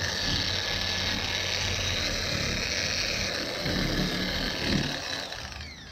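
3-inch random orbital sander wet-sanding a plastic headlight lens with a 3000 grit disc, a steady whir with hiss. Near the end the motor winds down, its pitch falling as it stops.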